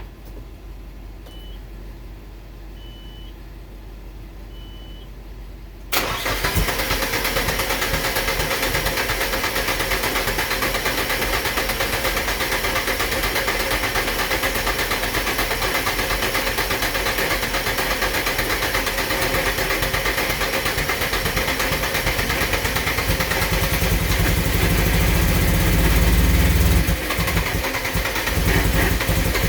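Nissan Silvia's starter motor cranking the engine over continuously without it starting, beginning suddenly about six seconds in. Before that there are three short, high electronic beeps. Near the end the sound grows deeper and louder, then dips briefly.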